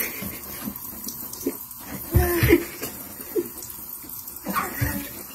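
Tap water pouring steadily into a bathtub. A few short vocal sounds come over it, the loudest about two seconds in.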